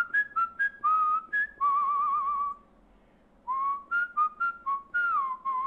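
A man whistling a short tune with pursed lips: a run of quick short notes ending on a long held note with vibrato, played twice, the second time sliding down into the long wavering note.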